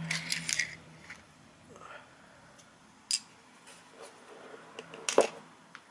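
Small sharp plastic clicks and taps from handling an N gauge model locomotive as its body shell comes free of the chassis. A few clicks come at the start, one about 3 seconds in, and the loudest pair about 5 seconds in.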